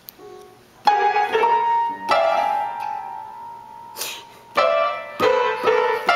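Upright piano keys banged by small children: clusters of notes struck together at uneven intervals, each left ringing, starting about a second in.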